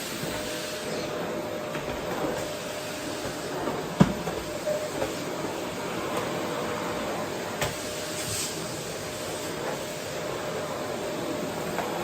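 Vacuum cleaner running steadily on a wooden floor, a steady rushing hiss with a faint constant hum. A sharp knock comes about a third of the way in.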